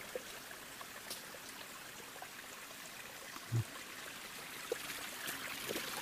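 Faint, steady rush of running water from a small forest stream. A short low vocal sound comes about three and a half seconds in.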